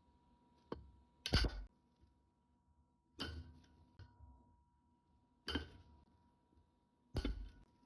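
Steel needle-nose pliers clicking and clinking against a large circlip in a bearing housing: about six separate metal knocks, spaced one to two seconds apart, as the tips slip off the clip. The pliers are too small to get the circlip out.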